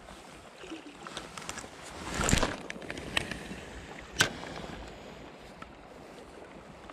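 River water running steadily, with a brief louder swell of water noise about two seconds in and a few sharp clicks.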